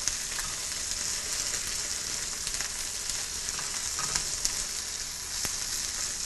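Gnocchi frying in hot olive oil and tomato paste in a skillet, a steady sizzling hiss, while a spatula stirs and scrapes them around the pan with scattered light clicks and one sharp click near the end.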